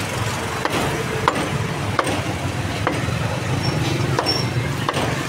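Cleaver chopping roast pork with crispy skin on a wooden chopping block: a series of sharp chops, roughly one a second, over a steady background rumble.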